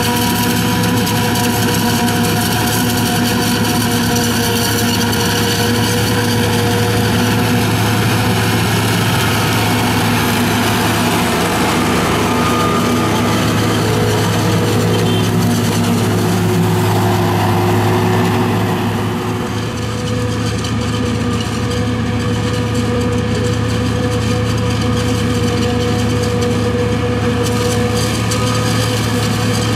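John Deere 7200 self-propelled forage harvester and the John Deere tractors running alongside it under load, a steady engine hum with the rushing of chopped maize being blown into the trailer. The level dips briefly about twenty seconds in.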